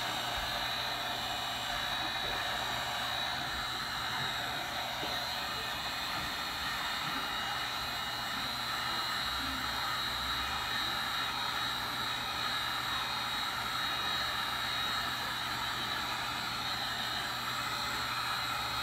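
Handheld heat gun blowing steadily, a constant rush of air with a high whine from its fan, held over alcohol ink on a stainless steel tumbler to set the ink.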